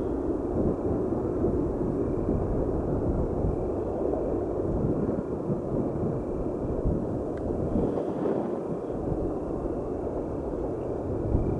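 Steady low rumble of distant freight trains heard across a valley, mixed with wind buffeting the microphone.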